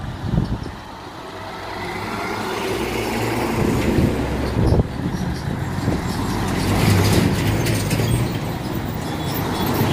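Heavy diesel goods trucks, a Tata and an Ashok Leyland, driving past one after another on a mountain road, the engine sound swelling as each one comes close. There is a brief sharp knock about five seconds in.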